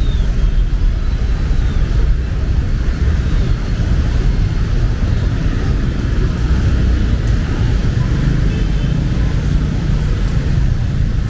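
Steady rain with the low rumble of vehicle engines and traffic running underneath.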